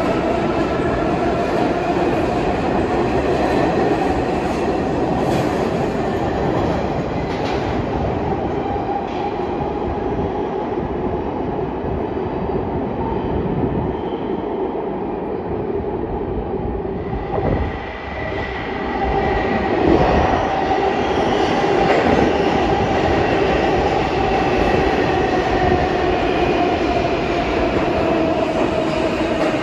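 New York City subway train running on the rails: a steady, loud rumble with wheel clatter and a motor whine that slowly rises and falls, dipping briefly about two-thirds of the way through.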